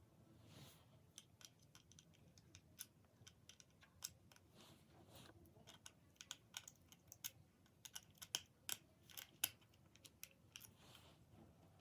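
Faint, irregular clicks and taps of small plastic toy parts being handled and fitted together, coming thickest in the middle and later part.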